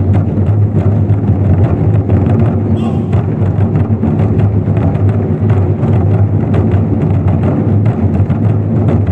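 24 Festive Drums ensemble: many large Chinese drums struck with sticks together in fast, dense, unbroken strokes. It is loud, with a deep low resonance under the hits.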